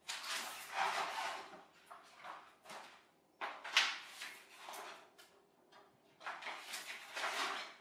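Stiff dark sheets rustling and crackling as they are pulled out of the panes of a window frame, in several separate bursts, the sharpest about four seconds in.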